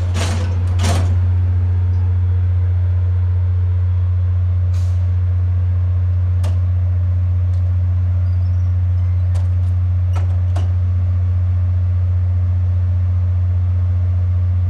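VIA Rail F40PH-3 diesel locomotive standing at the platform with its engine running, a loud steady deep drone. Two sharp bursts of hissing air come in the first second, and a few brief hisses or clicks come later.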